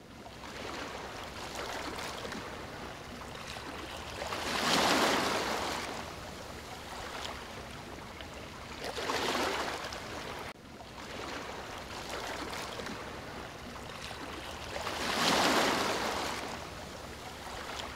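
Ocean surf washing against a rocky shore: a steady wash of water that swells three times as waves come in and break.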